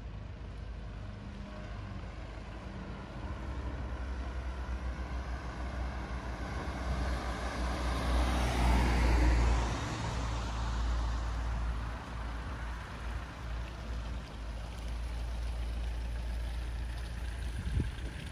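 A motor vehicle passing by, its engine and tyre noise swelling to a peak about nine seconds in and then fading, over a steady low rumble. A short knock near the end.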